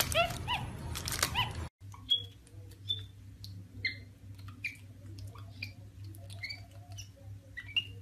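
Capuchin monkey giving a string of short, high, squeaky chirps that drop in pitch, about one every half second to a second, over a low steady hum. Before them, a second and a half of paper crinkling with a few squeaks cuts off abruptly.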